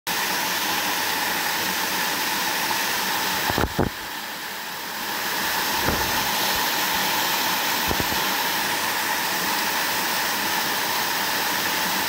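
Small cascading waterfall: a steady rush of water spilling over rocks into a pool. A few low bumps come about four, six and eight seconds in, and the rush dips briefly after the first of them.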